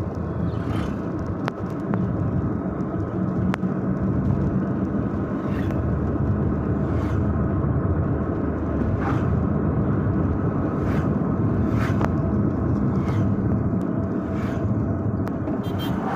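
A car's engine and tyre noise heard from inside the cabin while driving steadily on tarmac, a continuous low rumble with a few faint clicks scattered through it.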